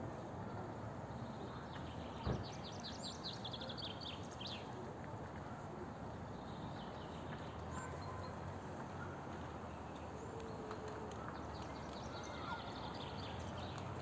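A small songbird singing a fast run of high, falling notes ending in a higher flourish, over a steady background rumble. A single sharp knock about two seconds in, and a few faint chirps near the end.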